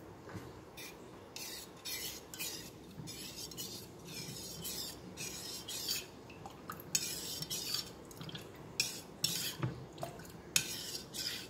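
Metal spoon stirring melting agar in a stainless steel double-boiler bowl, scraping against the bowl's sides in repeated, irregular strokes from about a second in.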